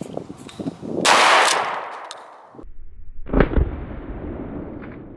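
A shotgun firing a round of birdshot about a second in, the blast trailing off over about a second. A second, deeper boom follows about two seconds later.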